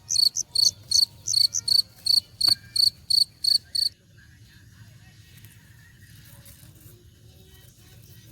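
An insect, cricket-like, chirping in a fast, even series of short high notes at about three to four a second. It stops abruptly about four seconds in, leaving only a faint low background hiss.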